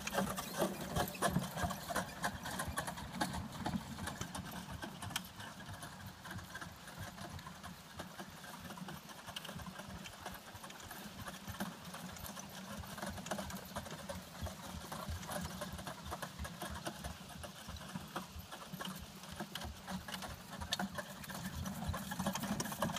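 Single horse trotting on grass while pulling a four-wheeled, wooden-spoked carriage: steady hoofbeats with a rapid rattling clatter from the carriage and harness. Louder at the start and again near the end as the carriage passes close, fainter in the middle as it moves away.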